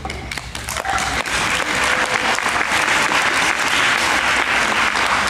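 Audience applauding, the clapping building over about the first second and then holding steady.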